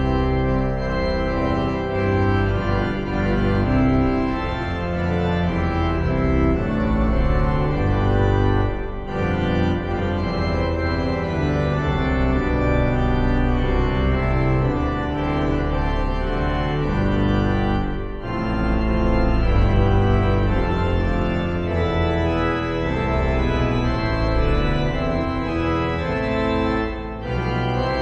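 Two-manual digital organ playing a hymn tune in held chords with a deep bass line, with brief breaks between phrases about every nine seconds.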